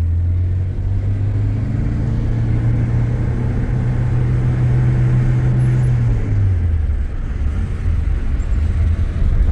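Car engine running under way, its low hum slowly climbing in pitch as it speeds up, then dropping suddenly about six seconds in, as at a gear change or lift-off.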